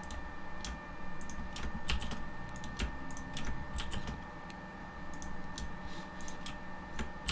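Computer keyboard keystrokes and mouse clicks, irregular and a few a second, as modelling shortcuts are entered, over a faint steady hum.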